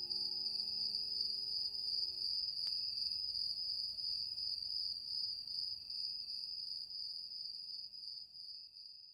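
Crickets trilling, a steady high-pitched chirr that fades out near the end, with the last held notes of the song's music dying away about two seconds in.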